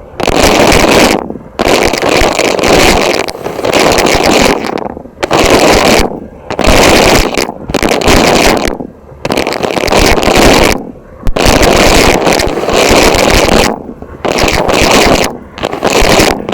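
Vacuum cleaner running very loud and distorted, its noise cutting out briefly every second or two.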